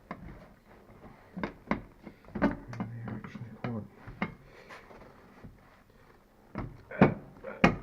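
Scattered small clicks and knocks of metal hardware being handled, nuts and washers going onto the seat-mounting studs, with some rubbing in between.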